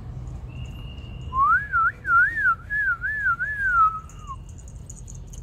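A person whistling a short wavy tune: a clear tone sliding up and down in about six linked notes, starting about a second in and lasting about three seconds.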